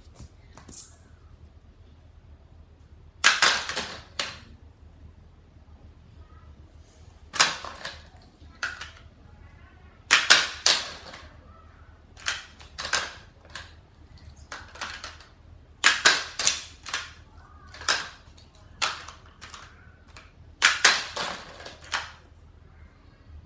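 Hard plastic toy clatter from a Hot Wheels Monster Trucks stunt-tire playset: about a dozen sharp clacks and snaps, several in quick clusters, as the spring launcher is worked and the toy monster truck strikes the plastic track and tire. A faint steady low hum runs underneath.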